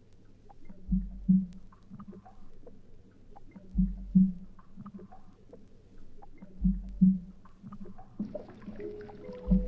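Ambient music played from a vinyl LP: a low, muffled double thump repeats about every three seconds over a deep rumble, with faint crackle clicks between. Near the end, steady held tones come in.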